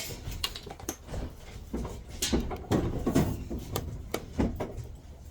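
Knocks, bumps and scraping of a clothes dryer being moved back into place: a sharp knock at the start, a cluster of bumps and scrapes in the middle, and another knock near the end.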